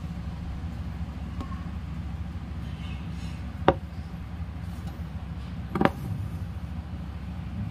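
Steady low background hum with two sharp knocks about two seconds apart near the middle, as a hand-held embroidery hoop is shifted about on a table.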